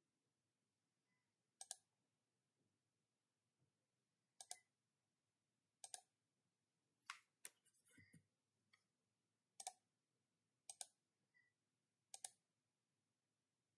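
Quiet clicks of a computer mouse, about eight of them at irregular intervals, many heard as a quick press-and-release pair, with near silence between.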